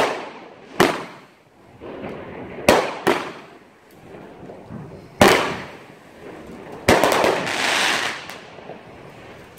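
Aerial fireworks going off: a string of sharp bangs a second or two apart, each trailing off, then about seven seconds in a longer crackling spray as a glitter burst opens.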